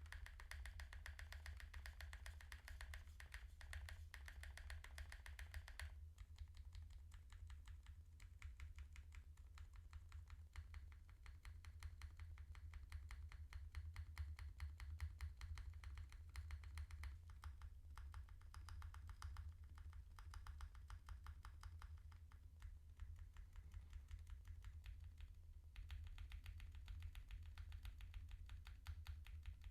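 Fast, continuous typing on a TKL mechanical keyboard with stock Gazzew x Smith + Rune U4Tx Plum tactile switches on an FR4 plate: a dense, even stream of key clicks and bottom-outs.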